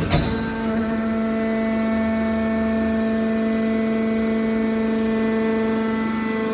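Hydraulic power unit of a scrap steel baling press running: the electric motor and pump give a steady hum, with a single short clack right at the start.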